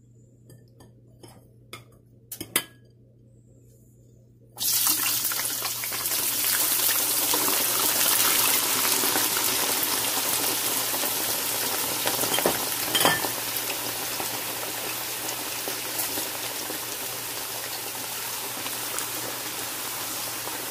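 Raw potato strips going into hot oil in a kadhai: after a few faint taps, a sudden loud sizzle about four and a half seconds in that carries on and slowly eases as they deep-fry. A couple of clinks sound about twelve to thirteen seconds in.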